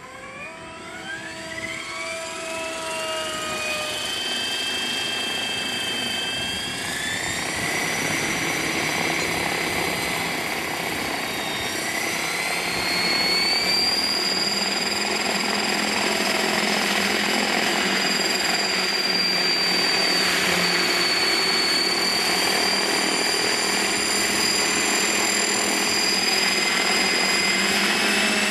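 Kasama Srimok 90 electric RC helicopter's brushless motor and rotors spooling up on the ground: a high-pitched whine of several tones climbs steadily for about seven seconds, then holds at a steady head speed.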